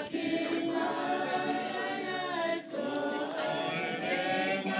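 A group of voices singing a hymn together, unaccompanied, with long held notes and a short break between phrases a little past halfway through.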